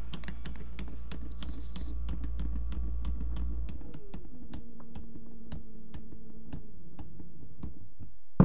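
Brushless motor of a Renault Kangoo electric power-steering column running on 12 V through a model-aircraft speed controller, turning the column's reduction drive and cardan shaft: a steady low hum with a faint whine and a fast, even clicking of about five clicks a second. A little before halfway the low hum stops, a lower whine takes over and the clicking slows. A sharp knock comes at the very end.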